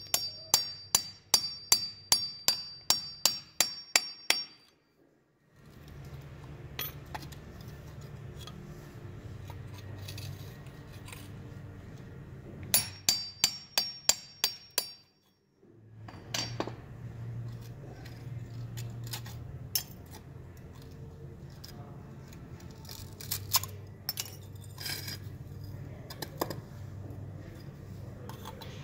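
A hammer tapping a steel chisel to break a plaster investment mold off an aluminum casting: two runs of quick strikes, about three a second, each with a short metallic ring, the first at the start and the second about halfway through. Between and after them, a low steady hum with scattered small knocks and crumbling of the plaster.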